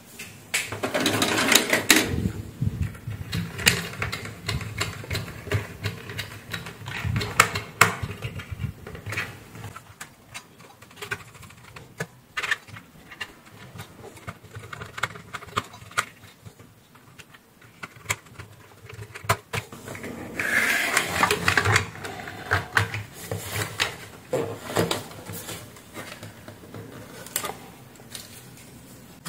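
Hands working on an open plastic blender motor base: irregular clicks and taps of plastic and wiring being handled, with louder bursts of rustling and clatter about a second in and again near two-thirds of the way through.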